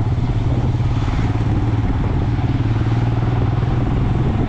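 Motorcycle engine running steadily at cruising speed, a continuous low drone with road noise.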